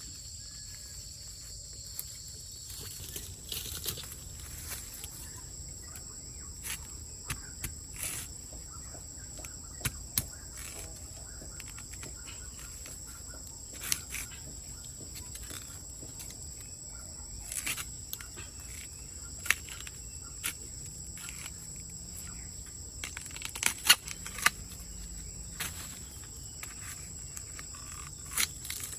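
Steady high-pitched insect chirring, with scattered sharp clicks and knocks, the loudest a short cluster of them late on.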